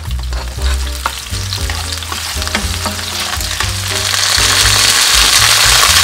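Sliced garlic and then clams frying in olive oil in a pan: a steady sizzle that swells louder and hissier about four seconds in.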